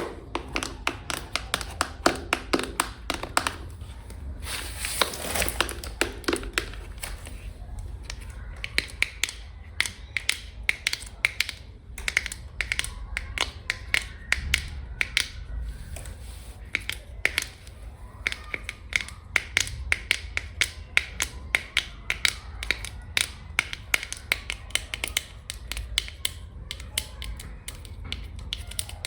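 Long fingernails tapping fast and hard on a hard surface: quick runs of sharp clicks, several a second.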